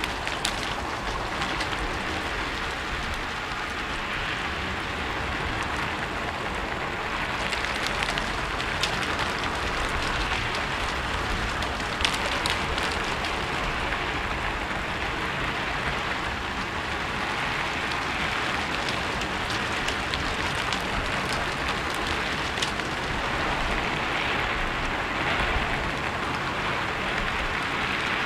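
Steady rain falling on a rooftop, a dense even patter with scattered louder drops ticking through it.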